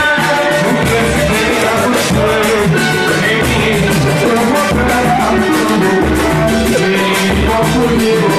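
A live pagode (samba) band playing with a sung lead vocal over steady percussion and a pulsing bass line.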